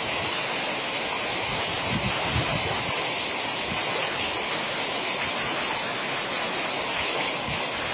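Steady rushing of a fast, muddy stream, with a few low thumps about two seconds in.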